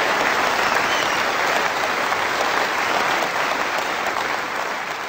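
A large crowd applauding steadily with dense clapping that begins to die down near the end.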